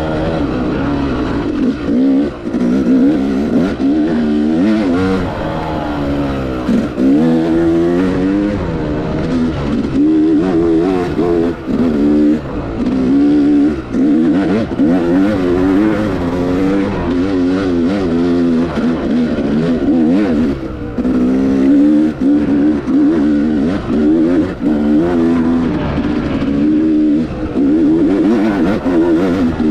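Yamaha YZ250X two-stroke single-cylinder dirt bike engine under way on the throttle, its note rising and falling again and again as it revs up and eases off, with a few brief dips in level.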